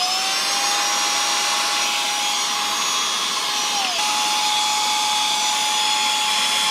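Cordless handheld car vacuum running at full speed: a steady high motor whine over rushing air. The whine dips briefly about four seconds in and then holds steady again. Its suction is pretty strong.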